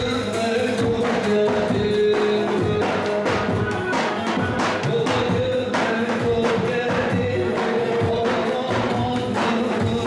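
Lively Turkish wedding dance music playing for a line dance: a sustained melodic lead over a steady, fast percussion beat.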